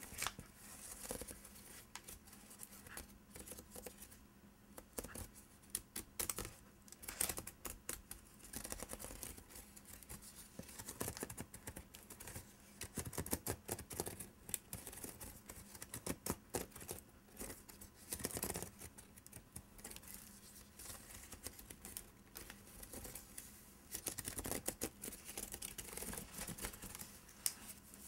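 Fingernails scratching and tracing along the woven strands of a wicker basket: a long run of irregular scratchy strokes and small clicks.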